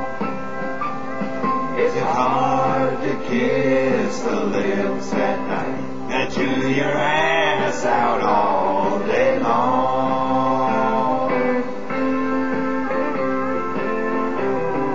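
Country song playing: guitar accompaniment with a wavering melody line through the middle, settling into steady guitar chords near the end.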